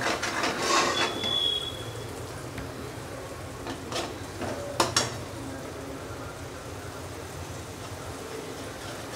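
Metal spatula stirring and scraping a thick frying paste of spices and sour yogurt in a steel kadai, louder in the first two seconds, with a faint steady sizzle and a few sharp clicks of the spatula against the pan about four and five seconds in.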